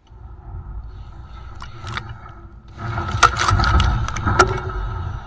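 Sun Joe TJ604E 13.5-amp electric tiller running, its motor whining steadily while the tines churn soil and dry plant stalks. Sharp clicks and knocks come as the tines strike debris. The sound grows louder from about three seconds in as the tines dig in harder.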